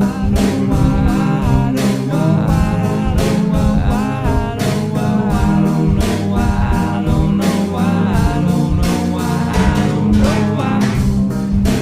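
Background music: a track with a steady beat, bass and guitar.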